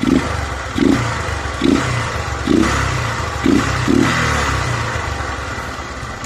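Motorcycle engine running with the air filter box cover removed and the filter left in, so the intake is open. The throttle is blipped about six times in the first four seconds, then the engine settles at a steadier speed.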